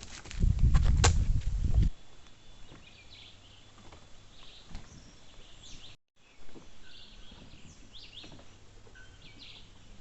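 Birds calling with short chirps at intervals over quiet outdoor background, after a loud low rumble in the first two seconds.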